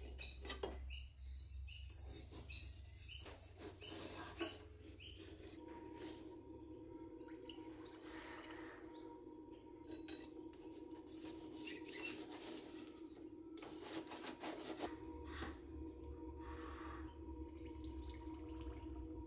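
Steel knife blades clinking against each other and the forge bricks as they are handled, then a steady hum from the coal forge's air blower starting about six seconds in, with several metal clanks. Near the end comes a brief hiss as a hot 1084 high-carbon steel blade held in pliers is quenched in warm oil.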